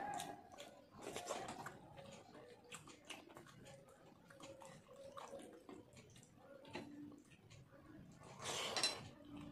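Fingers mixing and squeezing water-soaked rice (panta bhat) on a steel plate: faint wet squelching with small clicks and drips, then a louder wet mouthful noise near the end as a handful is eaten.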